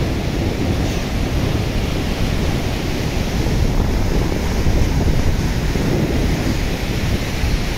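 Steady rush of surf breaking on a sandy beach, with wind buffeting the microphone in a heavy, fluttering low rumble.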